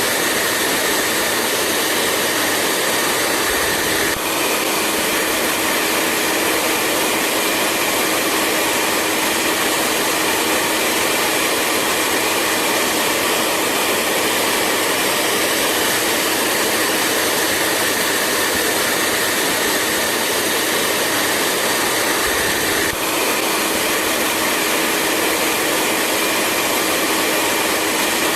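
Hair dryer running steadily: a continuous rush of blown air over a steady motor hum. Its tone shifts slightly with a brief dip about four seconds in and again near the end.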